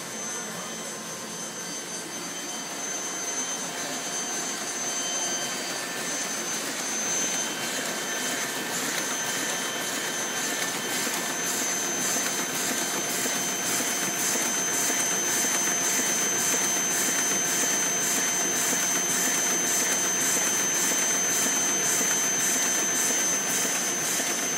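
1982 Heidelberg SORMZ two-colour sheet-fed offset press running a print job: a steady mechanical whir with a fast, even clatter, growing louder over the first dozen seconds.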